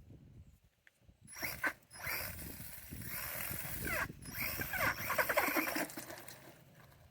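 HBX 903A RC car driving hard: its electric motor and gear drivetrain whine, rising and falling in pitch with the throttle, over a rattling mechanical clatter. It starts about a second in and fades near the end.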